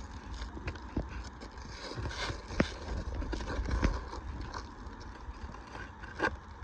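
Roofing nails being pried out of asphalt shingles: irregular scraping and sharp metal clicks and knocks, the loudest a little over two and a half seconds in and another near the end.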